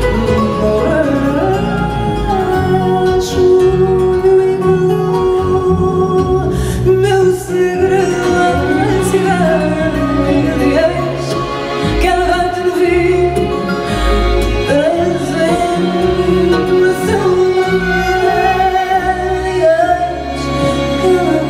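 Live fado: a woman singing a slow melody into a microphone, accompanied by guitars.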